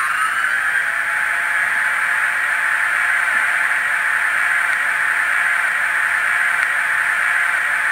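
Electric-train sound from a DCC sound decoder, played through the small built-in speaker of an N-scale model 115 series train: a whining hum with hiss that finishes rising in pitch in the first half-second, then holds steady.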